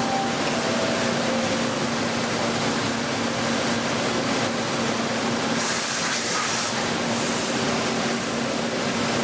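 CNC machine tool running: a steady hiss with a low steady hum underneath, and a sharper, higher hiss for about a second around the middle.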